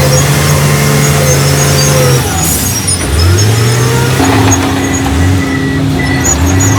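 Heavy construction-machine diesel engine running loud and steady. About two seconds in its pitch drops, then it revs up in quick rising surges several times.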